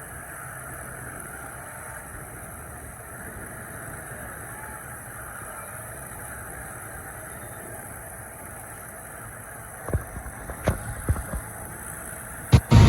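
Distant Rolls-Royce Merlin engines of several Spitfires and Hurricanes running steadily as the fighters taxi together. Near the end comes a run of sharp, loud thumps.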